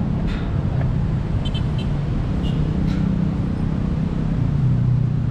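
Steady road traffic from cars and motorbikes, a continuous engine rumble and hum that grows a little louder near the end.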